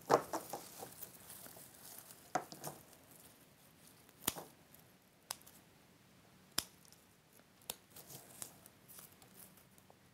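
Floristry scissors snipping woody berried stems: several sharp clicks about a second apart, with soft rustling as the stems and berries are handled in between.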